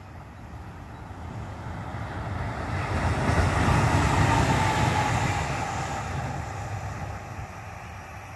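Two Class 187 (Bombardier TRAXX) electric locomotives coupled together, running light with no train, passing by on the track. The sound swells as they approach, peaks about four seconds in and fades as they move away, with a faint whine that drops slightly in pitch as they pass.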